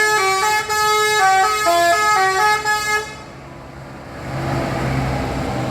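Telolet bus horn on a Sudiro Tungga Jaya bus, playing a quick melody of several notes sounding at once, the pitches changing every fraction of a second, cutting off about three seconds in. A low steady hum follows about a second later.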